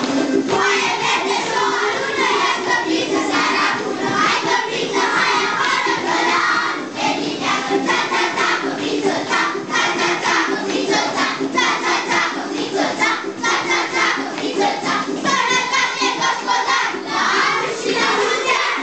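A group of children singing and shouting together in chorus, loud and rhythmic.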